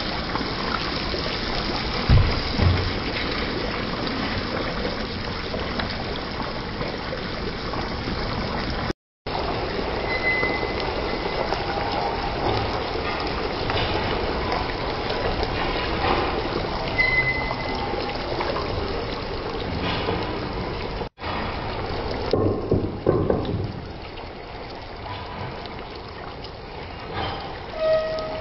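Beef curry cooking in a pan on the stove, a steady sizzling hiss, with a couple of knocks from the wooden spoon against the pan near the start. Midway, water is poured into the pan. The sound cuts out briefly twice.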